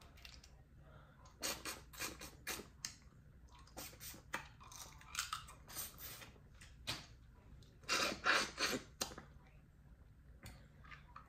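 Dungeness crab legs being cracked and picked apart by hand, with chewing: runs of short shell crackles and clicks in clusters, the loudest about eight to nine seconds in.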